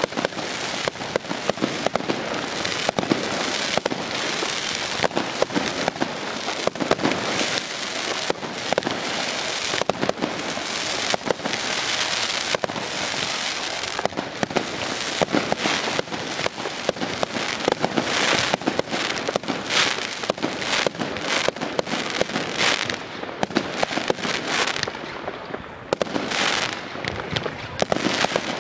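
Fireworks going off in a dense, unbroken run of bangs and crackling, with a short lull about three-quarters of the way through before the bangs pick up again.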